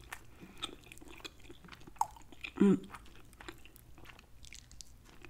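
Close-miked chewing and wet mouth sounds of someone eating tender jerk turkey wing meat, with scattered small clicks and one short hum from the eater about two and a half seconds in.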